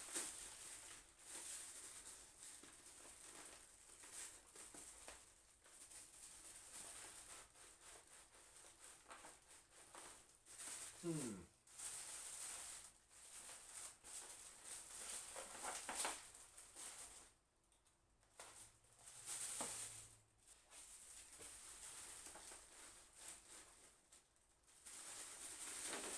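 Faint, irregular rustling and crinkling of plastic and foam packing material being handled inside a PC case. A few short, falling murmurs are heard along the way.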